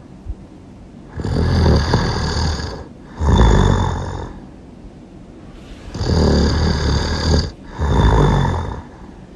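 Loud snoring in two pairs: two snores close together starting about a second in, a pause of over a second, then two more starting about six seconds in.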